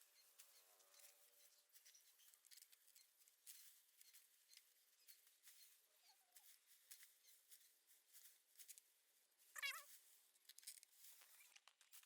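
Near silence with faint scattered ticks and rustles, broken about ten seconds in by one short, wavering animal call.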